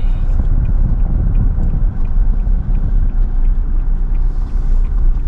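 Steady low rumble of a vehicle driving on the road, with faint ticks about twice a second.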